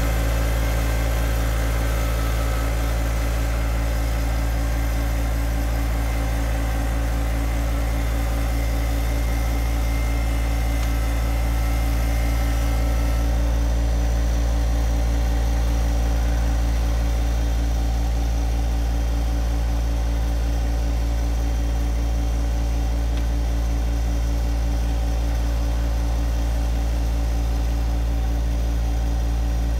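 John Deere 2025R compact tractor's three-cylinder diesel engine running steadily at a constant speed, with a high hiss that drops away about halfway through.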